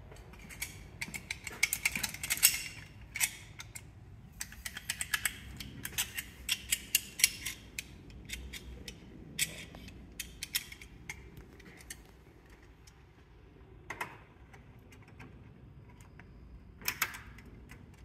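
Metal hand tools clinking and clattering on a tool tray: quick runs of sharp clicks for the first ten seconds or so, then a few single clacks.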